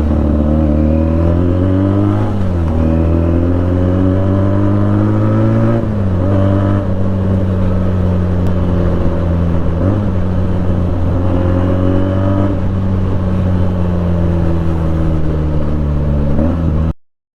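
Benelli 300's parallel-twin engine running under a rider. Its note drifts in pitch and dips and picks up again sharply a few times with throttle and gear changes, then cuts off suddenly near the end.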